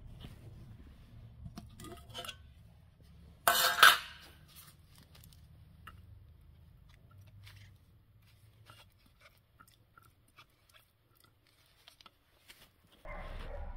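Metal tin lid prised off with a screwdriver, giving a loud metallic clatter a few seconds in, with faint clicks and scrapes around it as the tin and brush are handled. A steadier noise starts near the end.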